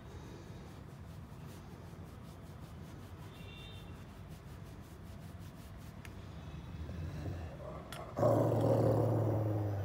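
Rottweiler growling: a faint low rumble at first, then a loud, low, steady growl that starts about eight seconds in and lasts about two seconds.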